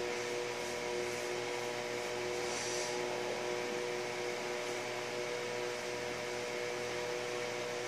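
Steady machine hum: a few held tones over an even hiss, unchanging throughout.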